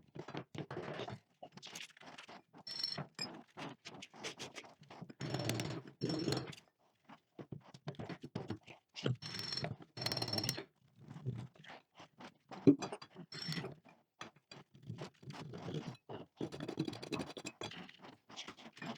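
Irregular scraping and knocking of objects being handled, with a few brief squeaks and one sharp knock about two-thirds of the way through.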